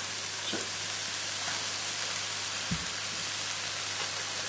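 Hot wok of stir-fried noodles and vegetables sizzling steadily just after soy sauce goes in, with one soft knock a little past halfway.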